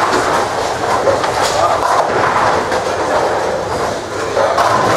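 Bowling alley din: a steady rumble of balls rolling down the wooden lanes, with pins clattering now and then.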